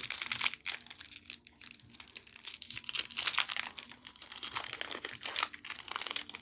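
Foil wrapper of a Magic: The Gathering Jumpstart booster pack crinkling and crackling in the hands as it is handled and opened, in a rapid, irregular run of crackles.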